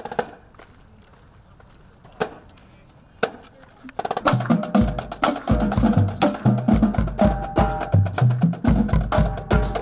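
A few sharp clicks about a second apart, then about four seconds in a high school marching band comes in loud: brass playing over bass drum pulses, snare strikes and quick mallet-percussion notes.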